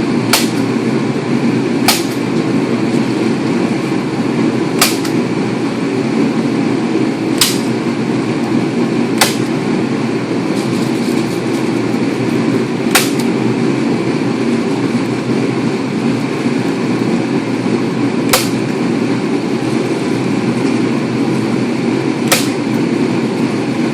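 A staple gun firing about eight times at uneven gaps of one to five seconds, each shot a sharp snap, as bubble-wrap insulation is stapled into a hot tub's cabinet. A steady low hum runs underneath throughout.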